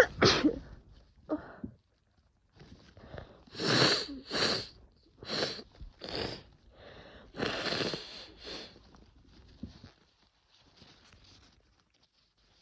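A woman's sneezing fit: a loud sneeze at the very start, then a string of short nasal blasts over the next several seconds, some in quick pairs, as she comes down with a cold.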